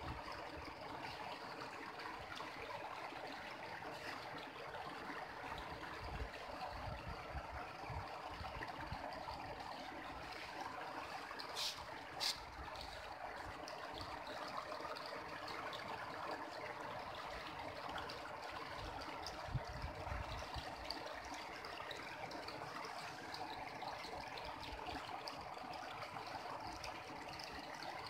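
Shallow mountain river water trickling and flowing over stones, a steady rush, with two short clicks about halfway through.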